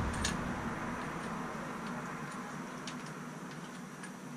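A few faint, scattered clicks from a dirt bike fork's top cap being threaded by hand back onto the fork tube, pressed down against the fork spring. Under them, a steady rush fades away.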